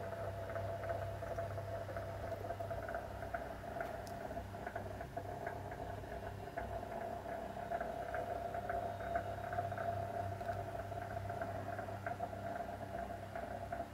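Electric boiler of a model steam boat under steam, with a steady hum and fast, irregular light ticking.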